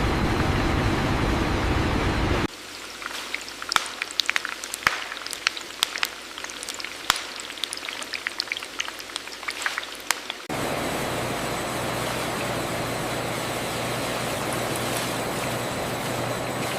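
Steady factory machinery noise that cuts out suddenly about two seconds in, giving way to dense, irregular crackling and popping like sizzling. About ten seconds in, steady machine noise with a low hum cuts back in.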